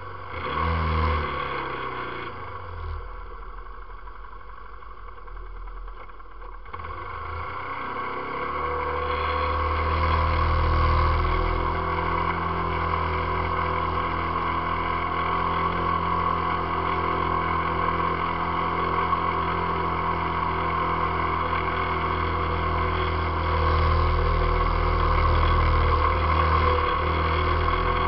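ATV engine revving briefly and dropping back, then a few seconds later picking up and running steadily and loud under load as the quad drives through flooded marsh grass.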